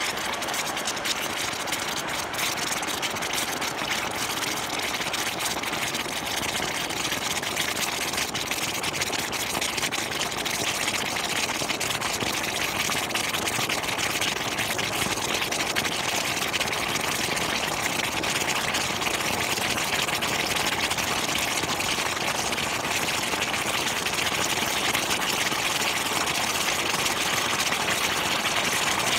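Gas forge burner running with a steady rushing roar, growing slightly louder toward the end.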